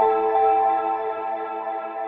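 Ambient music: a held, sustained chord with a few slow melody notes changing above it, slowly fading.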